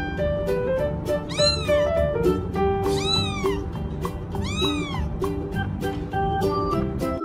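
Kitten meowing three times, each a high call that rises and then falls in pitch, over background music.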